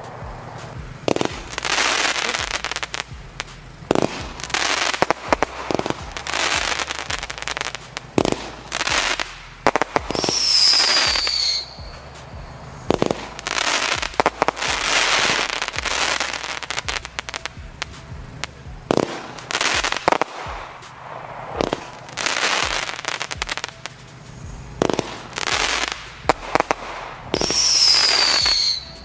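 A 'Final Showdown' compound firework battery firing shot after shot: sharp bangs from the launches and bursts, with crackling in between. Twice a short whistle falls in pitch, about ten seconds in and again near the end.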